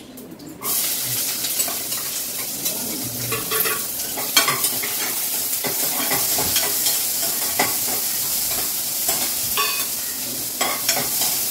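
Chopped onions tipped into hot oil with spluttered mustard seeds, sizzling loudly from about half a second in and then hissing steadily. A spoon scrapes and knocks the pan now and then as they are stirred to sauté.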